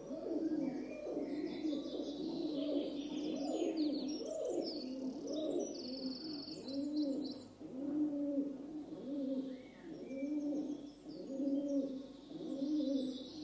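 Rock doves (feral pigeons) cooing over and over in low, rising-and-falling notes. The coos overlap thickly at first and settle to about one a second in the second half. Higher, thin chirping notes run through roughly the first half.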